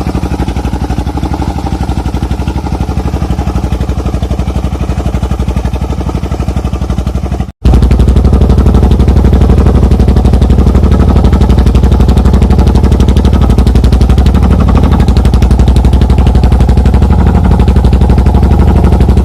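Dong Feng single-cylinder diesel engine of a truck running with a rapid, even chugging. About seven and a half seconds in it cuts out for an instant, then comes back louder.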